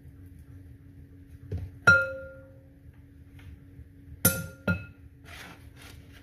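A kitchen utensil strikes a glass dish three times: once about two seconds in, then twice in quick succession about four seconds in. Each strike rings briefly with a clear glassy tone, followed by some soft scraping, over a faint steady hum.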